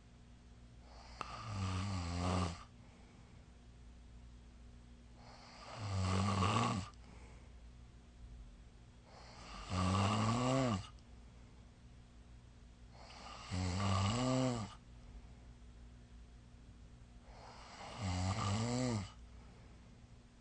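A person snoring: five loud snores about every four seconds, each lasting over a second, with a pitch that rises and then falls.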